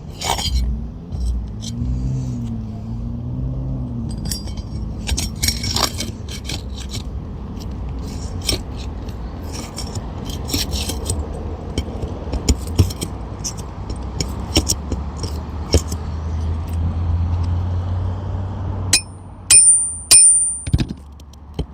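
Metal pry tool scraping and tapping at a stubborn roofing nail under an asphalt shingle, with scattered clicks and scrapes and a few sharp, ringing metal taps near the end. A low vehicle rumble runs underneath and swells in the second half.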